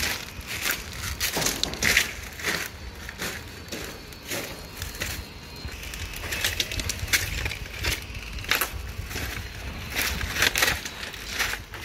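Footsteps crunching on loose rounded river-pebble gravel, in an uneven walking rhythm of about two crunches a second.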